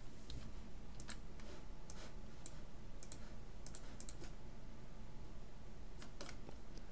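Scattered computer keyboard and mouse clicks, single or in short clusters, with gaps of about a second between them, over a faint steady low hum.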